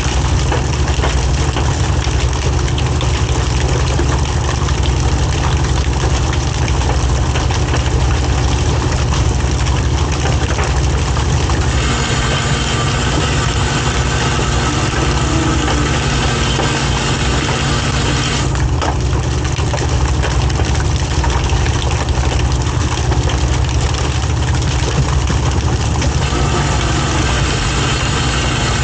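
A fishing boat's diesel engine running steadily at a low, even drone. About twelve seconds in, a second, higher-pitched mechanical tone joins it and then cuts off suddenly about six seconds later.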